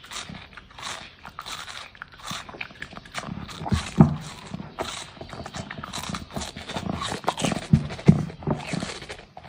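A dog eating melon: irregular crunching and chewing bites, with louder crunches about four seconds in and again near the end.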